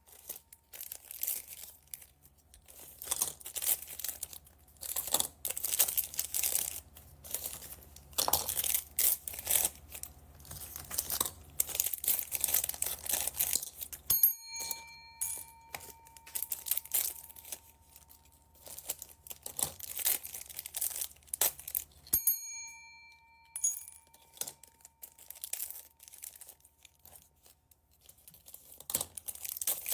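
Plastic packaging bags crinkling and rustling in irregular bursts as they are handled and torn open, over a faint steady low hum.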